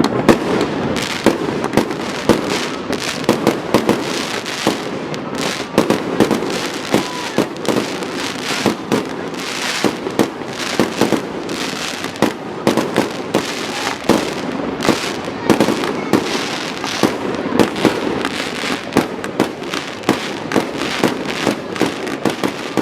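Fireworks display: a dense, continuous run of bangs and crackles, several a second in irregular succession, over a steady rumbling wash.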